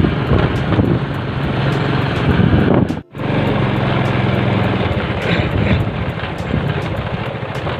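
Motorcycle engine running at a steady speed while riding, with rushing road and wind noise. The sound cuts out for a moment about three seconds in.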